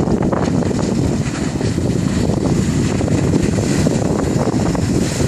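Steady wind rush on the microphone aboard a moving jet ski, mixed with the jet ski's engine and water noise.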